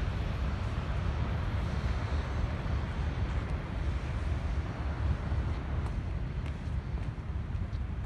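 Wind buffeting the microphone outdoors: a steady, gusting low noise with no distinct events.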